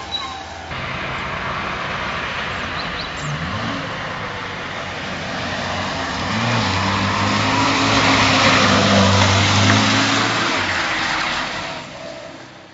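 Chang'an mini truck's small 30 PS engine revving through drifts, its pitch rising and falling, under a broad hiss of tyre noise that swells loudest about two-thirds of the way through, then fades near the end.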